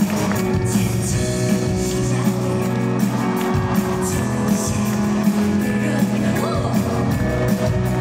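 Live pop-rock band music through a concert PA: drums keeping a steady beat under bass and electric guitar, with women singing.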